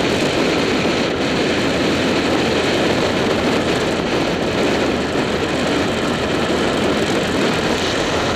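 Steady rush of wind and road noise on a motorcycle-mounted action camera's microphone at road speed, with the motorcycle's engine running underneath.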